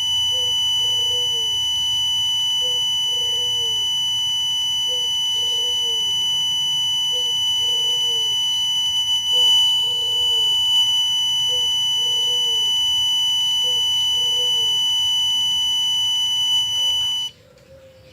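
Piezo buzzer of a thermistor fire-alarm circuit sounding: a single high, steady tone. It cuts off suddenly about a second before the end.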